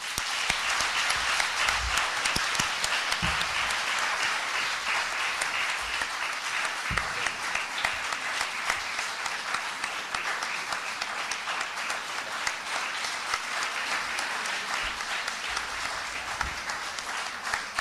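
Audience applauding: dense, steady clapping that starts abruptly and eases off slightly near the end.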